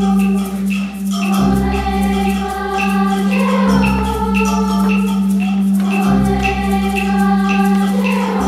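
Children's choir singing in unison and harmony with instrumental accompaniment, held bass notes changing every couple of seconds under repeated short high notes.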